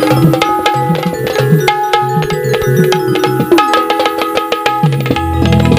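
Instrumental folk dance music: barrel hand drums play a fast rhythm with deep, pitch-bending bass strokes under a held, steady melody. There is no singing.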